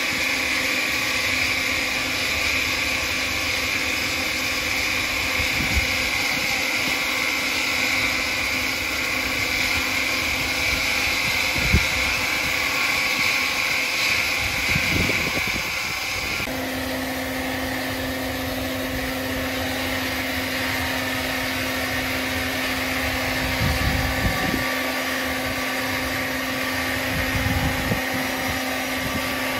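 Woodworking machinery running steadily, with a high hum that cuts off about halfway through and gives way to a lower steady hum. A few dull knocks come through the running noise.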